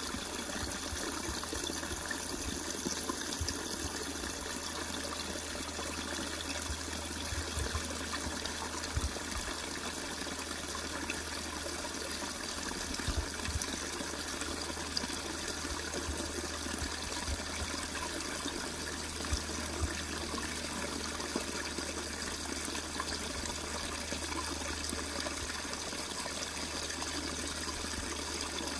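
Small woodland stream spilling over a rock step in a tiny waterfall: a steady splashing trickle of water into a shallow pool.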